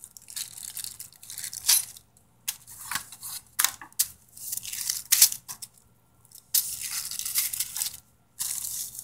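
Plastic zip-lock bags crinkling and rustling in irregular bursts as they are handled, with the thin metal welding strips inside them clinking lightly.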